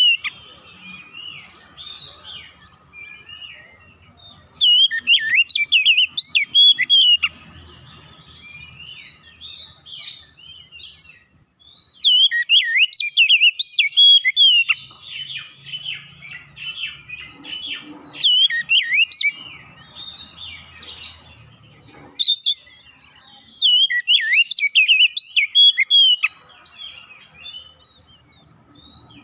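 Oriental magpie-robin singing: loud runs of varied, rich whistled phrases lasting a few seconds each, repeated several times, with quieter twittering between them.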